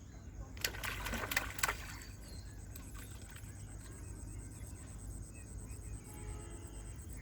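River water splashing: a few quick splashes between about half a second and two seconds in, then only a faint steady background.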